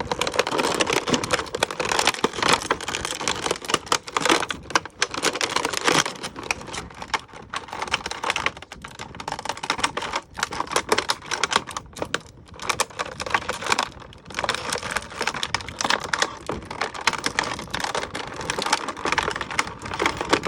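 Stiff plastic packaging crinkling and clicking as an action figure is worked loose from it: a dense, irregular run of clicks and crackles.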